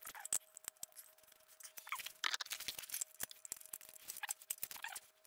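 Irregular metallic clicks and scrapes of hand tools and mounting brackets being worked under a motorcycle's engine while a sump guard is fitted, coming in short flurries, over a faint steady hum.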